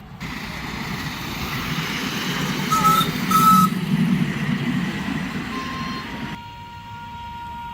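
A train running past with a steady rumble, sounding two short blasts on its horn close together about three seconds in. Just after six seconds the rumble stops suddenly and a steady single tone sounds for about two and a half seconds.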